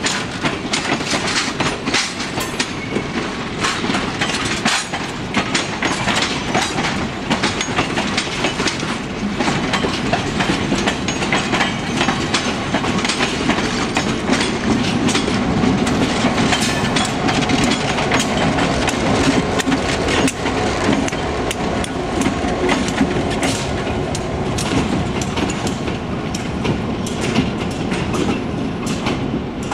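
Passenger train rolling past, its steel wheels clicking steadily over the rail joints in a continuous clickety-clack. About halfway through, the diesel locomotive at the rear of the train goes by, adding a low engine drone under the clicking.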